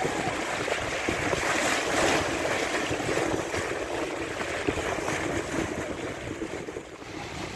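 Bow wave rushing and splashing along the hull of a Huon pine sloop under sail, with wind buffeting the microphone. It swells about two seconds in and eases a little near the end.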